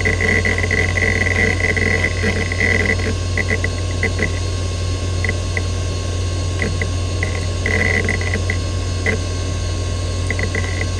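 Western Digital Caviar 205AA two-platter IDE hard drive spinning with a steady low hum, its heads seeking in irregular bursts of rapid clicking chatter while the operating system loads the desktop. The seeking is busiest at the start, thins out in the middle, and picks up again near the end.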